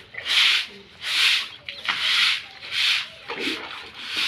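Stiff stick broom sweeping a wet concrete floor: five swishing strokes, about one every 0.8 seconds, the last one weaker.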